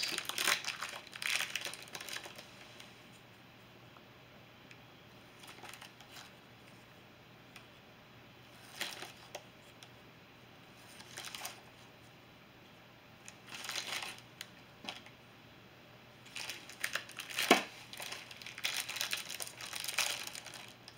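Foil-lined paper cookie wrapper being torn open and crinkled in short, irregular bursts, with quiet gaps between. A sharper crackle near the end is the loudest moment.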